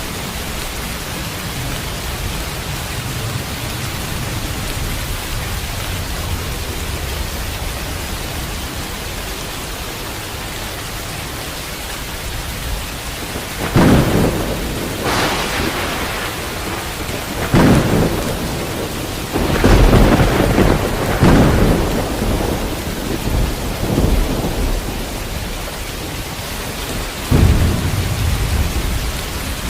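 Steady rain, with thunder breaking in about halfway through: a run of loud cracks and rumbles, the last one near the end.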